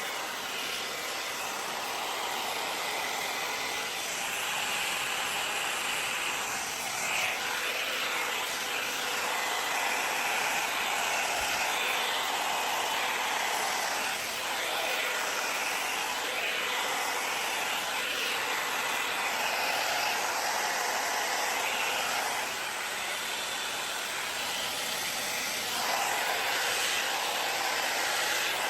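Wavytalk Air Sculpt hot air brush blowing steadily, a continuous airy hiss that swells and dips slightly as it moves through the hair.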